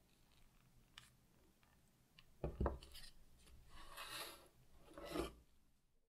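Stainless steel baking tray set down on a counter with a soft knock about two and a half seconds in, then its parchment paper lining rustling as it is handled, and a second light knock just after five seconds.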